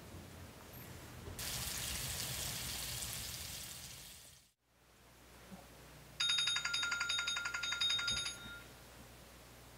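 Pancakes and butter sizzling in a frying pan, fading out. After a brief silence, an alarm goes off for about two seconds with a rapid pulsing beep.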